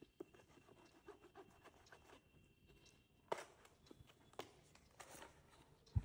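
A knife slitting the packing tape along the edge of a cardboard box: faint scratching and ticking. About three seconds in there is a louder scrape, then a few more cardboard scrapes as the lid comes open, and a sharp click near the end.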